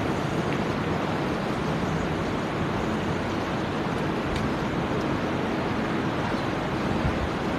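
Steady rushing noise of electric wall fans running.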